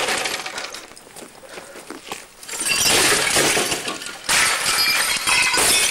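Old CRT computer monitors and computer cases being smashed on a road: crashing and breaking glass and plastic, with shards tinkling. It is loud at the start, dies down for a couple of seconds, then picks up again about three seconds in.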